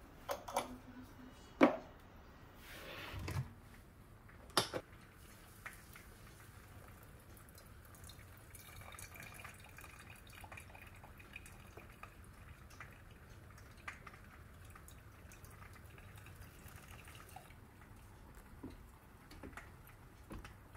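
A few sharp knocks of things set down on the counter, then hot water from an electric kettle poured slowly onto coffee grounds in a stainless steel mesh pour-over dripper: a faint steady trickle for several seconds, giving way to scattered drips of coffee into the mug near the end.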